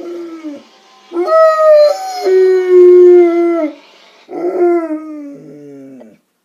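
Dog howling in response to a fire truck siren: a short howl, then a long howl that steps down in pitch, then a last falling howl that trails off near the end.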